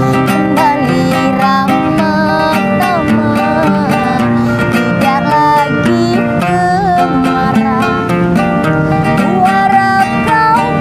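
Music: an acoustic guitar strummed under a melody that slides between notes.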